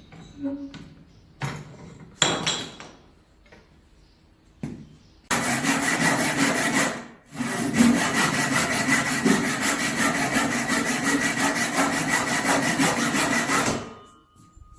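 A hand saw cutting wood in a long run of quick, even strokes, with a short pause partway through. A few separate knocks come before the sawing starts.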